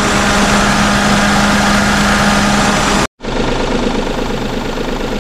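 Daihatsu Tanto L350S's three-cylinder 660 cc engine idling steadily under electrical load, with the headlights and air conditioning switched on. The sound breaks off for an instant about three seconds in, then the idle carries on.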